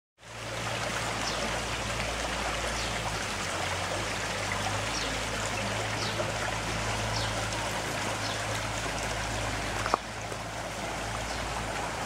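Small brook trickling steadily over stones, an even rush of running water, broken by one sharp click about ten seconds in.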